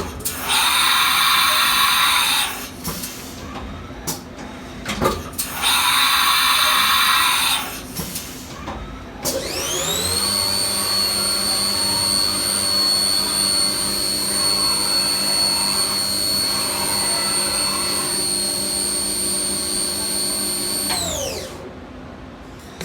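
Haas TM-1P CNC vertical mill running: two hissing bursts of about two seconds each, then the spindle whine rises, holds steady for about eleven seconds and winds down.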